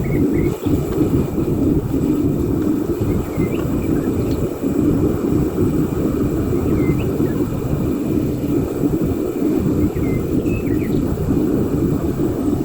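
Home foundry furnace burner running with a steady, low rushing noise while the furnace melts a charge of copper pipe.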